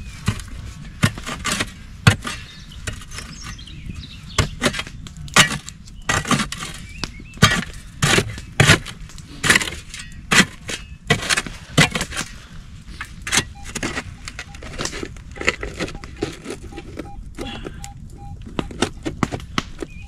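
Hand digging tool striking and scraping stony soil at the bottom of a pit: irregular sharp knocks of metal on earth and stones, one or two a second, with loose soil shifting between them.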